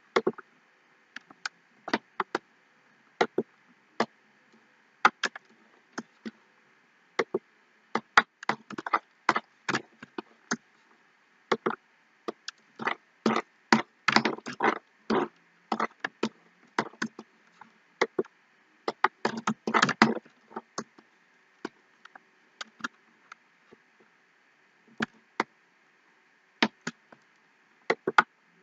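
Computer mouse clicking: single clicks at irregular intervals, with two runs of rapid clicks about halfway through and again about two-thirds of the way through.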